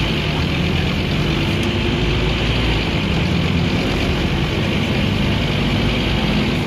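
Scania OmniCity bus's diesel engine running steadily with the bus under way, heard from inside the passenger saloon along with road and body noise.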